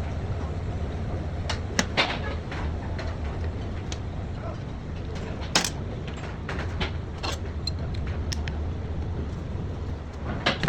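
Workshop handling noise: a few short sharp knocks and clicks, one about two seconds in and another near the middle, over a steady low hum.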